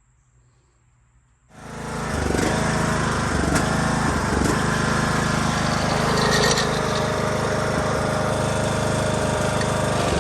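Riding lawn mower's small engine running steadily after a belt and blade job, cutting in suddenly about a second and a half in after near silence.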